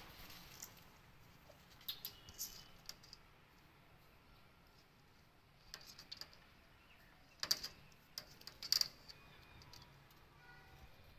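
Scattered light scratches and clicks of a kitten's claws catching in a mesh window fly screen as it climbs, with sharper rasps around two seconds in and again in a cluster past seven seconds.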